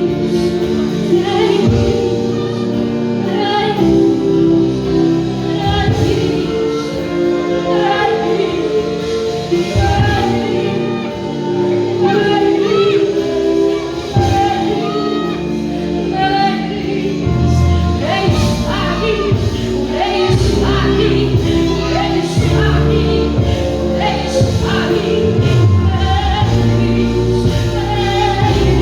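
Live church worship music with singing over sustained chords; a deep bass comes in about two-thirds of the way through.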